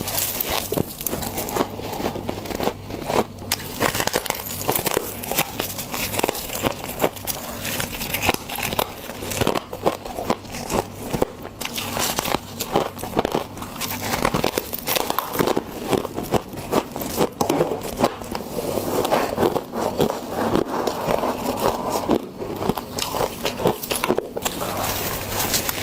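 Close-up biting and chewing of fluffy humidifier frost (frost grown in a freezer from humidifier mist), with dense, irregular crunching and crackling throughout.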